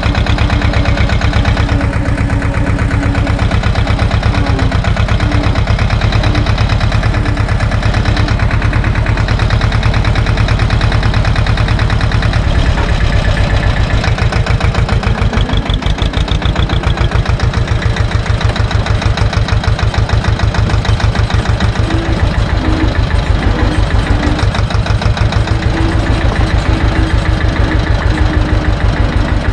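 Same tractor's diesel engine running steadily as the tractor drives along, its firing beat even throughout.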